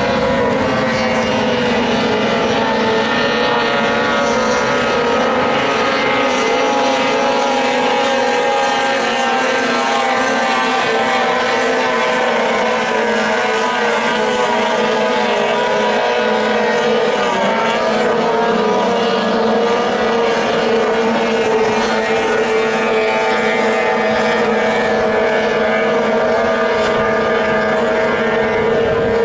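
Engines of several small racing boats running flat out at once, a steady, unbroken engine whine with slight wavering in pitch.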